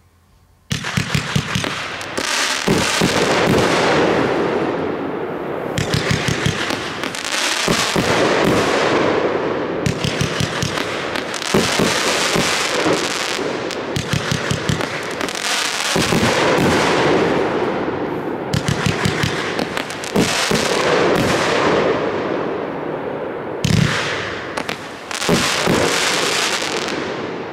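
A 500-gram consumer fireworks cake firing a long unbroken volley of shots, starting about a second in: repeated launch thumps with bursts of dense popping and crackling, swelling again every couple of seconds.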